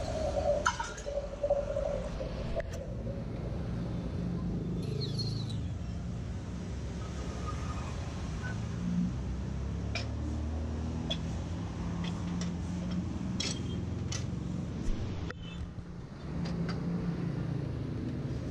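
Scattered clicks and knocks of hands and a screwdriver working the plastic and metal parts of a partly dismantled photocopier, over a steady low rumble.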